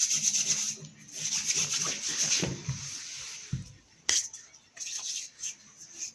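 Hands rubbing together briskly, a rhythmic dry rasp that pauses after about three seconds and returns in short strokes near the end, with one sharp click about four seconds in.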